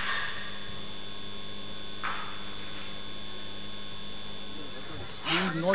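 Steady electrical mains hum on a security camera's audio track, with a short burst of hiss about two seconds in. Near the end it gives way to louder noise and a raised voice.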